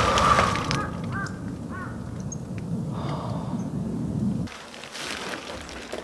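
Wind buffeting the microphone in a low, irregular rumble that cuts off suddenly about two-thirds of the way through, with a bird calling a few short notes about a second in.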